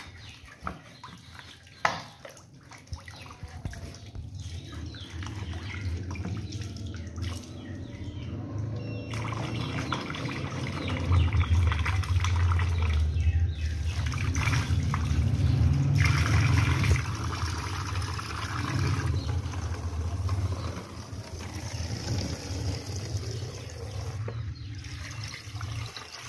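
Water running from a tap into a plastic bottle and a bucket as the bottle is rinsed out, splashing and gurgling. It builds up and is loudest in the middle, then eases off.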